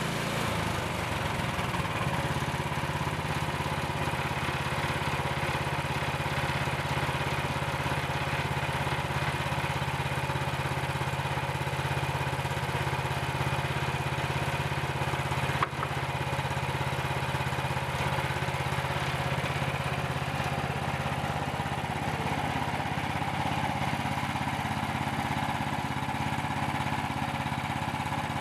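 Gasoline engine of a Frontier portable band sawmill running steadily at an even speed. There is a single sharp click about sixteen seconds in.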